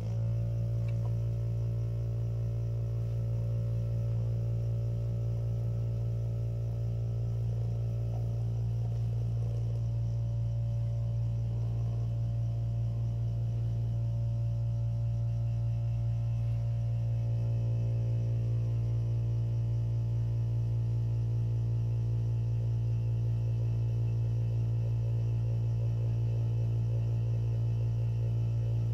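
Steady low electrical hum with a ladder of overtones, coming on abruptly and holding at an even level: a mains-powered device running during the printhead cleaning.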